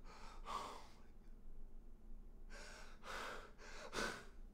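A young man gasping and breathing hard in shock: one breathy gasp near the start, then a run of three or four sharper gasps from about two and a half seconds in, the last the loudest.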